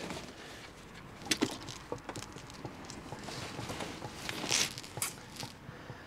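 Scattered small clicks and taps of a half-inch drive ratchet turning out the gear oil drain plug on a Ford 555 backhoe, with one sharper click about a second and a half in.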